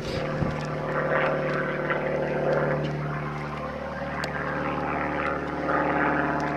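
A steady engine drone: a low hum with a buzz of harmonics above it, swelling slightly near the end.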